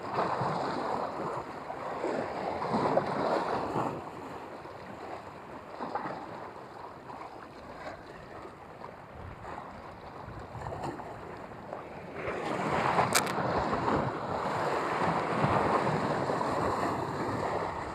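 Small sea waves washing against the rocky shore, rising in swells near the start and again from about twelve seconds in, with wind buffeting the microphone.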